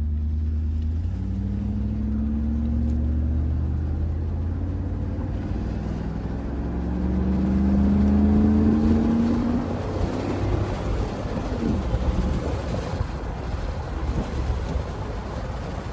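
1991 Mercedes-Benz R129 SL heard from inside the cabin pulling away from a stop: about a second in the engine note starts to rise, drops back, and rises again more loudly as the car accelerates through the gears. Then it settles into steady road and tyre noise.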